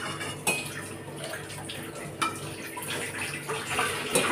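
Ladle scooping leftover hot frying oil out of a steel kadhai and pouring it into a steel container, with a few light clinks of the ladle against the metal.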